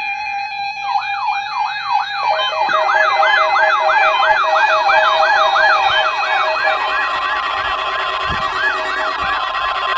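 Several weather-alert radios sounding their siren alarms together, set off by the NOAA Weather Radio weekly test. Their warbling tones sweep up and down about twice a second, each radio joining a moment after the last, over steady alert beeps.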